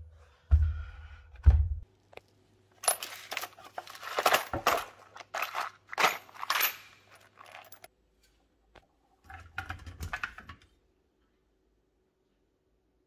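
Two low thumps in the first two seconds, then small brass hose fittings clinking and rattling against each other in a plastic tub as a hand rummages through them for several seconds. A shorter burst of rattling follows about ten seconds in.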